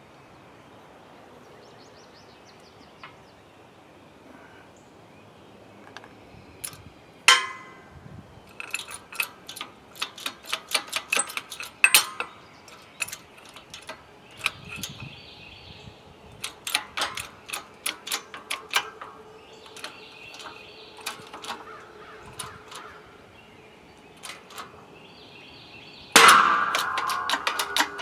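Hydraulic shop press being worked to push a seized piston down the bore of a Studebaker Commander inline-six block: runs of sharp metallic clicks and taps, getting louder and denser near the end.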